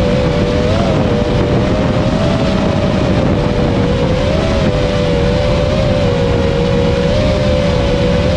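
FPV freestyle quadcopter's brushless motors whining at a steady pitch that wavers slightly with small throttle changes, over loud prop-wash and wind rush on the onboard camera's microphone.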